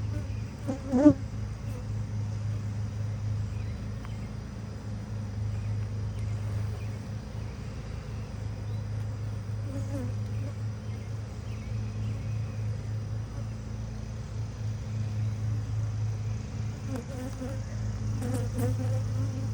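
Honeybee colony buzzing in a steady hum at the open hive, with a short sharp knock about a second in.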